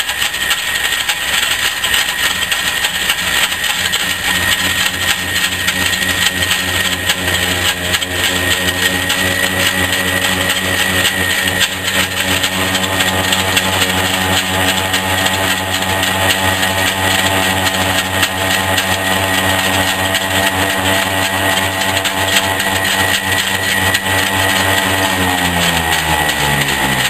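A Rockford metal lathe and an electric grinder with a cutoff wheel run together, a steady high whine over a motor hum. Near the end the hum falls in pitch as the motor winds down.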